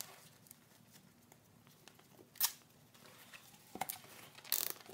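A zip tie being pulled tight around a strut dust boot. There is a sharp ratcheting click about halfway, a couple of fainter ticks, then a brief, louder rasp near the end.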